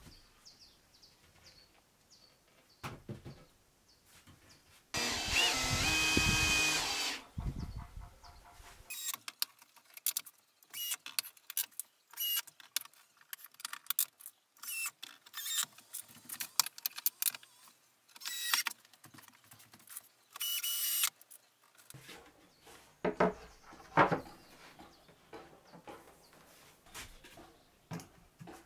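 Cordless drill driving screws into formwork boards: one run of about two seconds and two shorter bursts later, the motor's pitch shifting under load. Between them come many light clicks and knocks of boards and screws being handled.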